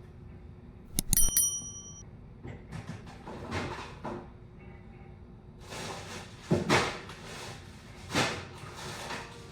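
Kitchen handling sounds: a sharp metallic clink about a second in that rings briefly, then several soft rustling and shuffling noises.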